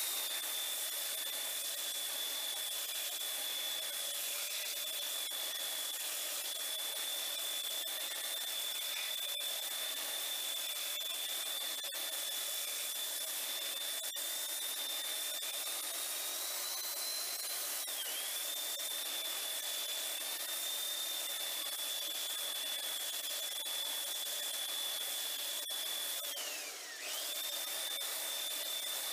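Handheld belt sander running on a wooden panel, the sanding belt rubbing across the wood under a steady high motor whine. The whine dips briefly in pitch about two-thirds of the way through and again near the end.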